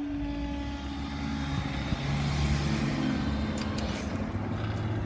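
High-speed passenger train passing the level crossing: a rushing rumble with a steady low hum that builds to a peak mid-way and then eases, with a few sharp clicks near the end.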